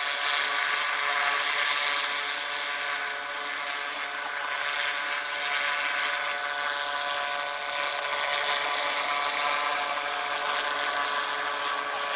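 Large radio-controlled scale model helicopter hovering just above the ground: a steady, high-pitched machine whine of its engine and rotor, with several held tones.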